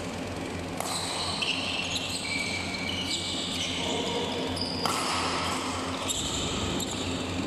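Badminton doubles rally: sharp racket hits on the shuttlecock and shoes squeaking on the court floor, over a steady low hum.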